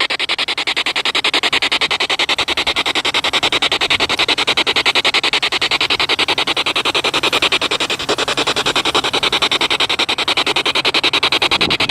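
SB7 spirit box sweeping through radio stations: a loud hiss of static chopped into rapid, even pulses.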